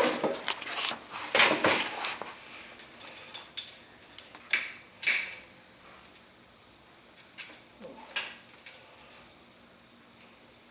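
Metal engine parts and hand tools clinking and knocking as the flywheel is fitted to a Kawasaki 1600 engine, in a busy clatter for about five seconds, then only a few light ticks.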